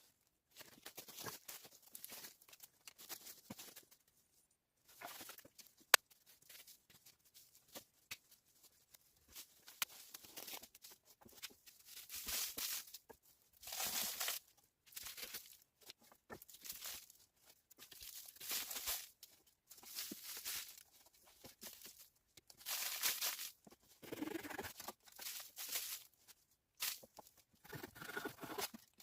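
Irregular scraping or tearing strokes, each about a second long, coming in uneven groups, with one sharp click about six seconds in.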